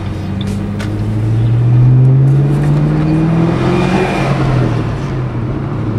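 Shelby GT500's supercharged V8 heard from inside the cabin, pulling under acceleration with its pitch rising steadily, then dropping off about four seconds in as the revs fall.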